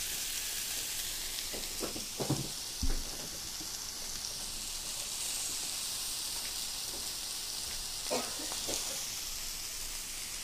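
Pork chops sizzling steadily on a hot round grill pan, a constant frying hiss. A few knocks and a dull thump come about two seconds in, and a few more knocks near eight seconds.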